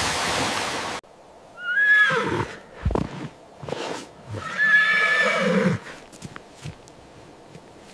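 A horse whinnying twice, the calls about three seconds apart, with a few soft knocks between them. Before the calls, a second of steady rushing noise cuts off suddenly.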